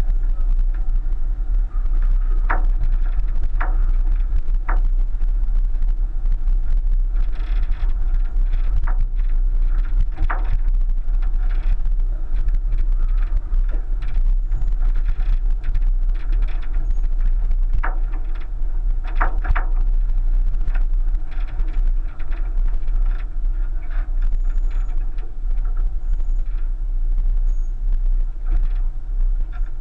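A 1999 Subaru Forester crawling over a rutted dirt and loose-stone track: a steady low rumble heard from a roof-mounted camera, broken by scattered knocks and clunks at uneven intervals.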